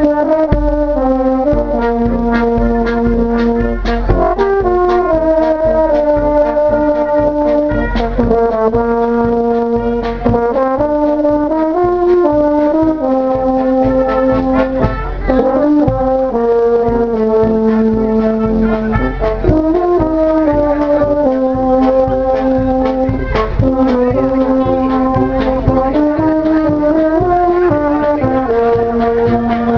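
Live Maltese brass band playing, with euphoniums and other brass holding and moving between sustained notes over a steady beat of sharp hits.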